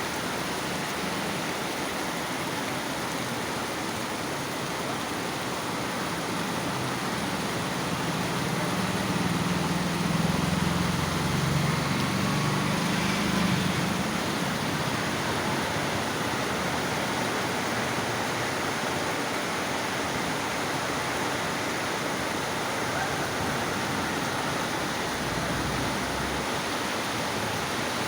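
Heavy rain falling, a steady hiss. A low rumble builds for several seconds in the middle and fades away.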